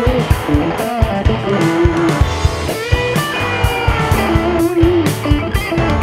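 Music: electric guitar lines over a steady drum beat.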